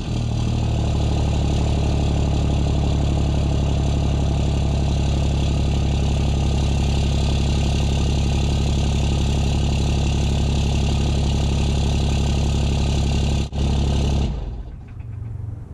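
6.7 L Cummins inline-six turbodiesel idling steadily, running again after the head stud install. The sound drops away about fourteen seconds in.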